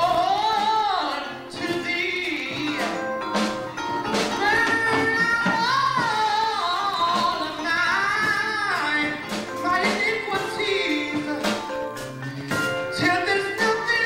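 A man singing a gospel solo into a handheld microphone over instrumental accompaniment, his voice sliding up and down through long held notes.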